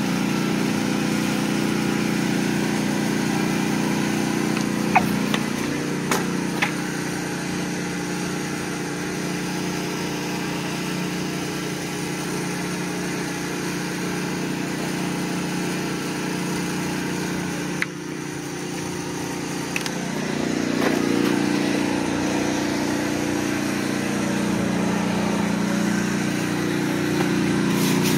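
An engine running steadily, with a few sharp clicks about five to seven seconds in and a slight rise in level around twenty seconds in.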